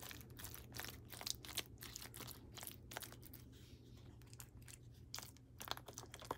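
A serving utensil pushing and spreading a thick pasta-and-meat mixture in a disposable aluminium foil pan: faint, irregular scraping, squishing and crinkling of the foil.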